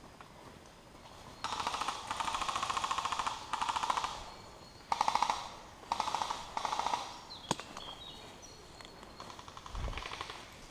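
Airsoft electric gun firing on full auto, a rapid mechanical rattle: one long burst of about two seconds, then three short bursts. A single sharp click follows about seven and a half seconds in.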